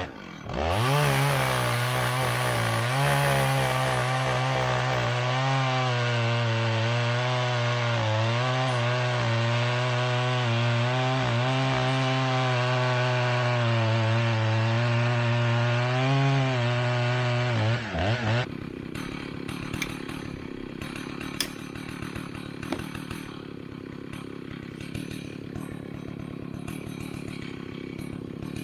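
Vintage two-stroke chainsaw cutting hickory under load, its engine note wavering as the chain bites. About two-thirds of the way through it drops off to a much quieter idle, with scattered clicks.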